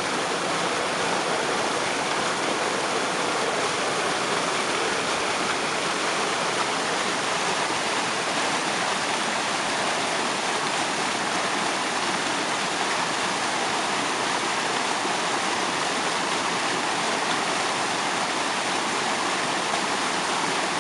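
Waterfall spray: falling water splashing in a steady, unbroken rush that does not change.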